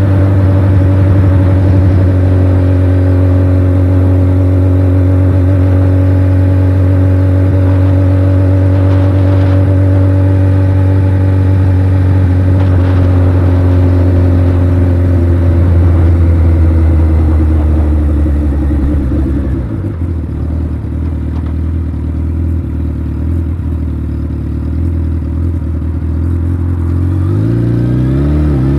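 Suzuki Hayabusa's inline-four engine cruising at steady revs, easing off slowly, then dropping off the throttle about two-thirds through and coasting with the engine quieter. Near the end the revs climb sharply as it accelerates again. Wind rushes over the microphone throughout.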